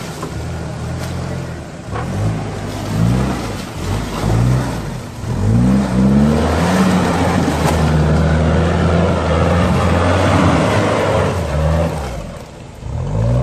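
Toyota Land Cruiser LJ77's turbo-diesel engine revving in several short bursts, then held at high revs for several seconds as the tyres churn through deep mud. It drops off near the end and revs once more.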